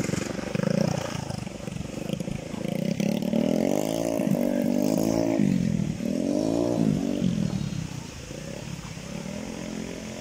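An engine running, its pitch rising and falling in several swoops through the middle, fading somewhat near the end.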